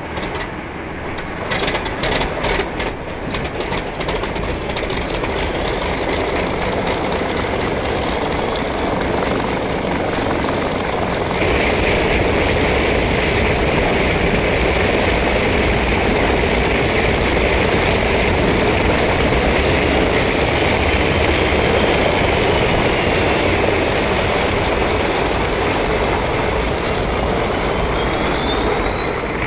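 Train running on the rails, a quick run of clicks early on, then a steady heavy rumble that gets louder about a third of the way through.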